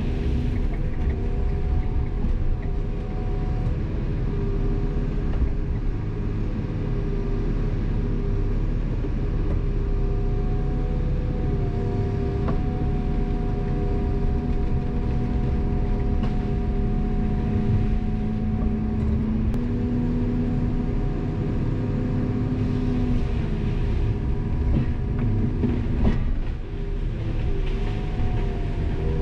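Heavy logging machine's diesel engine and hydraulics, heard from inside the operator's cab: a steady drone with whining tones that shift in pitch as the machine works, and a few knocks, the strongest about 26 seconds in.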